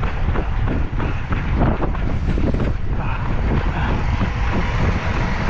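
Strong wind noise on the microphone, with the steady footfalls of a runner at marathon pace.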